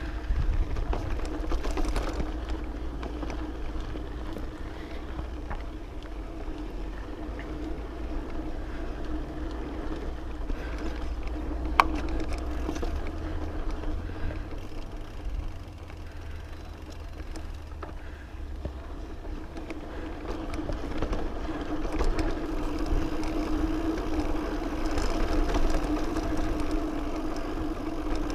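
Specialized Camber Comp 650b mountain bike riding over a dirt and rock trail: tyres rolling with a steady hum and low rumble, with scattered rattles and clicks from the bike, one sharp click about twelve seconds in.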